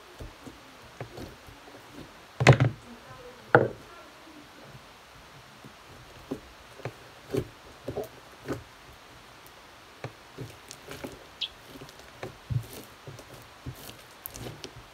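A large lump of slime being kneaded, pressed and patted by hand on a tabletop: scattered soft thuds and squishes, with two louder thumps about two and a half and three and a half seconds in.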